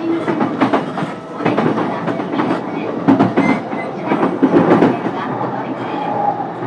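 Running sound inside a JR East E233 series electric train's motor car at speed: a steady rumble of wheels on rail, broken by many sharp clacks and knocks as the wheels pass over rail joints.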